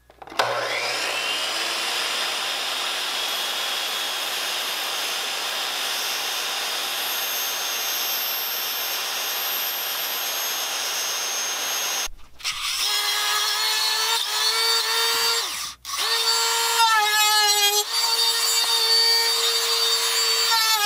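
DeWalt miter saw starting up with a rising whine and running steadily while cutting a rubber radiator hose, for about twelve seconds, then cutting off suddenly. After it, a different steady whining tone whose pitch wavers runs to the end.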